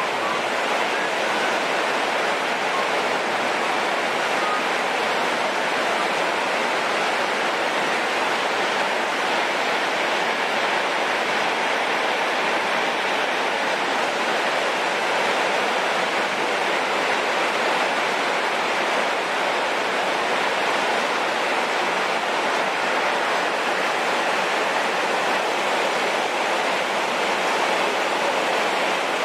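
Heavy rain pouring steadily onto tree foliage, an even, unbroken downpour.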